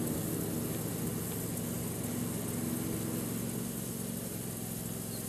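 A steady mechanical hum, like a motor running, with an even background hiss; the hum fades somewhat in the last second or so.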